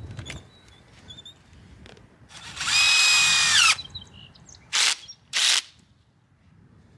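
Handheld power drill driving a wood screw through a pole rail into an upright pole: one longer run that spins up and winds down as it stops, then two short bursts to seat the screw.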